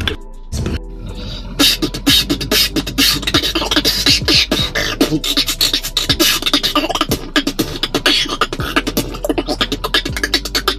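Solo beatboxing: a person makes drum sounds with the mouth, with kick, snare and hi-hat strokes in a fast, dense rhythm that gets going about a second and a half in.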